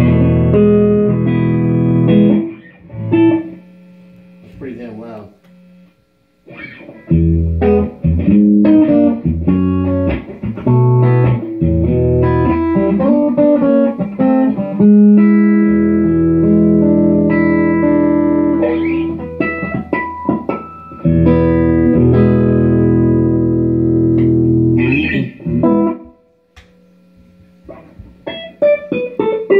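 Mexican HSS Stratocaster played clean with slight reverb through a Tech 21 Trademark 60 amp and a Tech 21 Power Engine 60 powered cabinet: ringing chords and single-note lines, with two short pauses, a few seconds in and near the end.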